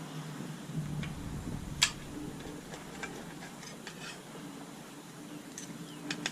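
Scattered light clicks and taps of tools and parts being handled, the sharpest about two seconds in and a quick cluster near the end, over a steady low hum.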